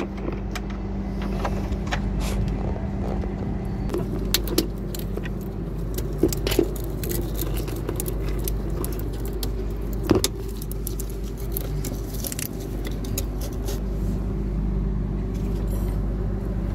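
Scattered light metallic clinks and taps of hand tools and loose parts against a car's front suspension, a few sharper knocks among them, over a steady engine-like hum.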